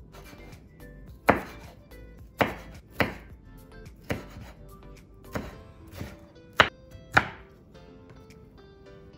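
Chef's knife chopping red bell pepper strips on a bamboo cutting board: about eight sharp, irregularly spaced knocks of the blade on the board, starting about a second in, over soft background music.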